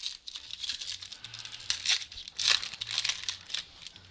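A trading-card pack wrapper being torn open and crinkled by hand, a dense run of quick rustling crinkles.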